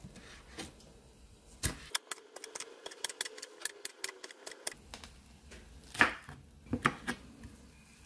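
Spring onion being chopped: a quick run of sharp cuts, several a second, lasting a couple of seconds in the middle, with a few single knocks before and after.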